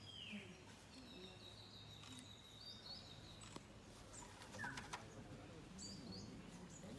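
Faint birdsong: a few short high chirps and whistled calls. One call sweeps down at the start, and a thin whistle is held for about two seconds a second in.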